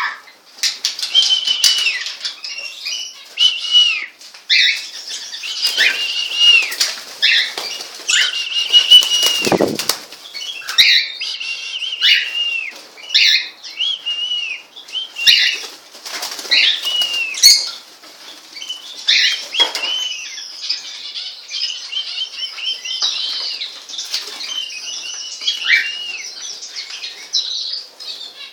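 Pet birds chirping over and over in short, arched, high notes, with bursts of wing flapping.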